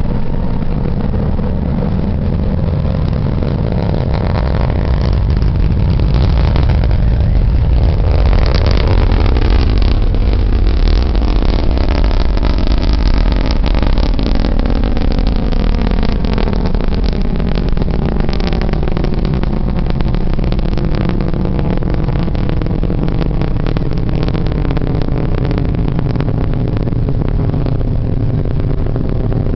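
Delta IV rocket engines roaring during ascent: a loud, continuous deep rumble, with dense crackling coming in about a third of the way through.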